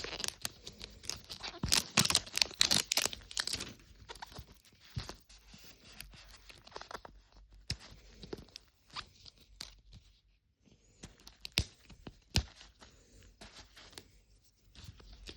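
Plastic wrapping being torn and crinkled off a Mini Brands capsule ball: dense crackling for the first few seconds, then sparser crinkles and sharp snaps.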